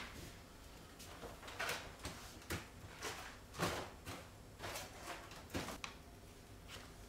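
Rummaging in a kitchen pantry cupboard: scattered soft knocks and rustles, roughly one a second, as things are moved about on the shelves.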